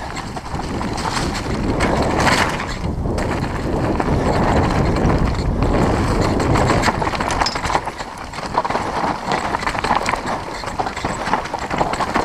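Mountain bike descending a loose dirt downhill trail at speed: tyres rolling over dirt and leaves, the bike clattering and knocking over bumps, and wind buffeting the microphone.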